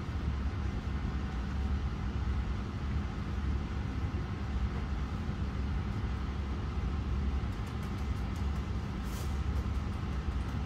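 Steady low mechanical hum and rumble, like an engine or machine running, with a few faint light clicks and a brief hiss near the end.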